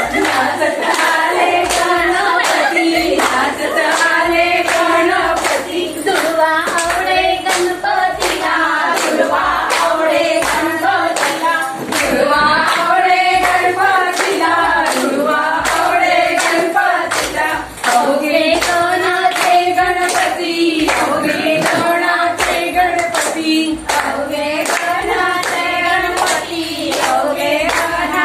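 A group of women singing together, clapping their hands in a steady, even rhythm.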